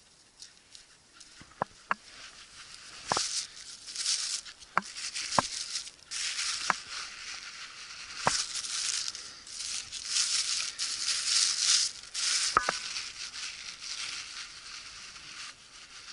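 Footsteps through dry, stiff grass and scrub: rustling swishes that come in surges with each stride, with scattered sharp snaps of stems and twigs underfoot.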